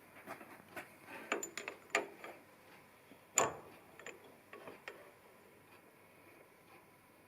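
Irregular light metallic clicks and taps as small steel parts and tools are handled at a lathe, with one sharper clink about three and a half seconds in.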